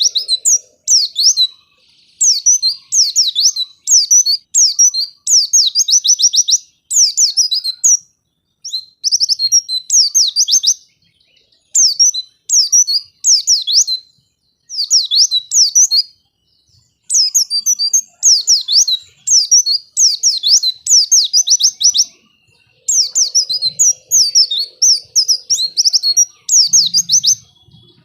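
White-eye (pleci) song: rapid, high, chirping phrases of fast up-and-down whistled notes, each about a second long. They repeat almost back to back, with a few longer pauses.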